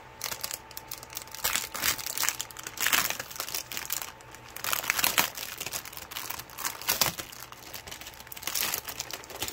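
Clear plastic wrapping on a framed canvas kit crinkling and crackling as hands press and grip it, in irregular bursts.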